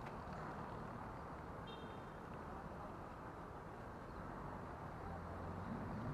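Steady low outdoor rumble of distant traffic, with a brief high chirp about two seconds in.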